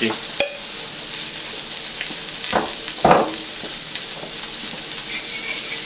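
Red snapper fillet sizzling skin-side down in a hot nonstick frying pan: a steady frying hiss that swells louder twice, around two and a half and three seconds in, as the skin crisps.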